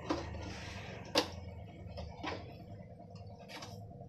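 Four light sharp clicks spaced about a second apart around a metal cooking pot of simmering kurma, over a low steady hum.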